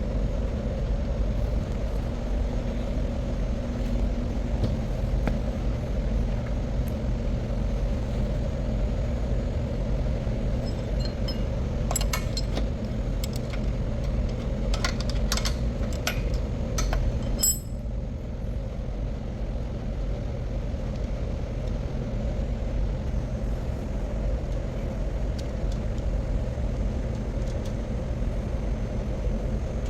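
Steady low machinery hum with a constant rumble, typical of a powerhouse's generating plant and ventilation. From about twelve seconds in there is a run of light metallic clinks and clicks for about five seconds, and shortly after that part of the hiss cuts off suddenly, leaving the hum.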